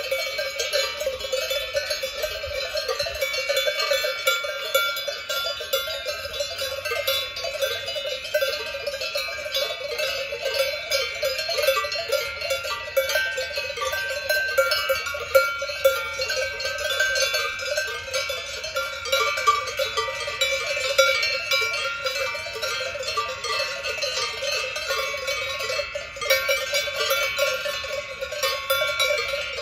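Many cowbells on grazing cattle clanking at once, an unbroken many-voiced jangle of overlapping bells of different pitches.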